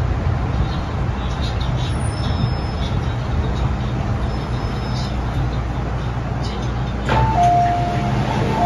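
Inside an MTR M-Train (Metro-Cammell) car: a steady low running rumble as the train slows and stops at a platform. About seven seconds in, a clunk as the doors open, then a two-note chime, a short high note and a longer low one, which starts again near the end.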